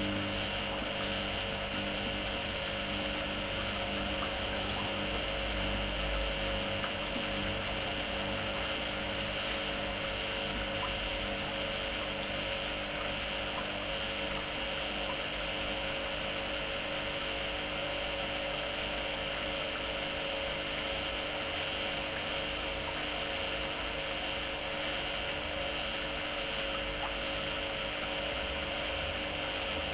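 Privileg 370 S washing machine running, a steady motor hum with fixed tones over a constant whir. A couple of the lower tones fade out a few seconds in.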